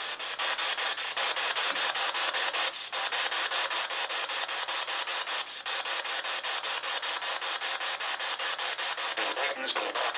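SB7 spirit box sweeping through radio stations: a fast, even pulsing of radio static, with a short louder fragment near the end.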